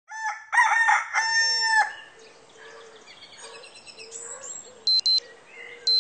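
A rooster crows once, loud, followed by faint birds chirping. Near the end a smartphone alarm starts beeping, a high double beep about once a second.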